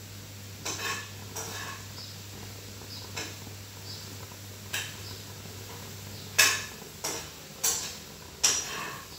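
Kitchenware being handled at the stove: about ten sharp metallic clinks and knocks of utensils against pots and dishes, spaced unevenly, the loudest about six and a half seconds in. A faint low hum underneath cuts off about two-thirds of the way through.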